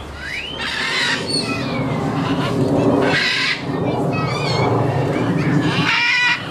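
Parrots squawking: several harsh, raspy calls, with a higher pitched call near the end.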